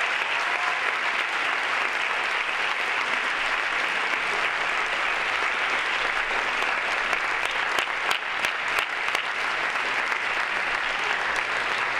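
An audience applauding with steady clapping.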